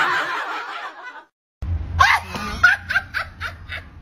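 Laughter fading out and cutting to dead silence just over a second in; about half a second later a new stretch of laughter, in short repeated pulses, starts over a low hum.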